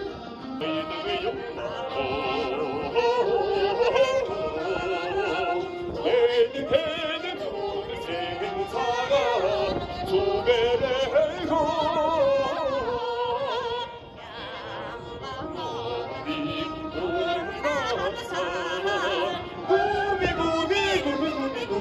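Live traditional Mongolian ensemble music, amplified through stage loudspeakers, with a singer's wavering voice over the instruments; it drops back briefly about two-thirds of the way through.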